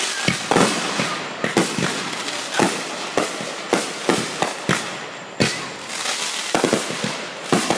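Fireworks going off: a rapid, irregular string of sharp bangs, about two a second, over a continuous crackling hiss.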